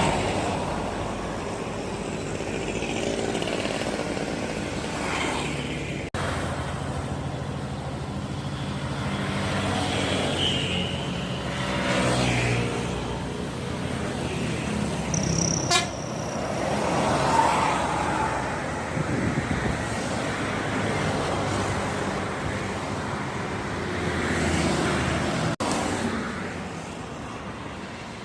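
Road traffic with buses and trucks passing one after another, engines running, and horn toots among the passing vehicles.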